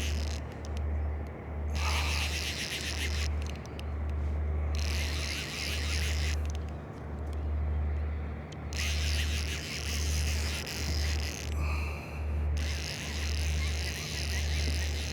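Wind buffeting the microphone: a low rumble swelling and fading about once a second, with stretches of high hiss that come and go every second or two.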